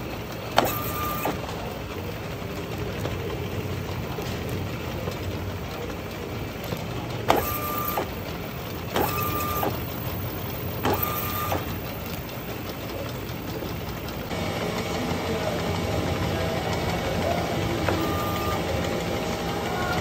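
Packaging-line machinery, a slatted chain conveyor carrying jars past a labelling machine, running with a steady hum. Sharp clacks come every few seconds, several of them with a short high beep. About two-thirds of the way through the machine noise steps up louder, with more steady tones in it.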